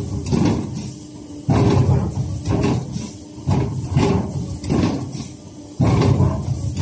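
WETRY M1050 automatic waste stripping machine cycling through its stripping strokes: a heavy thump about every two seconds with lighter knocks and sliding strokes in between, as the stripping head and the sheet frame move.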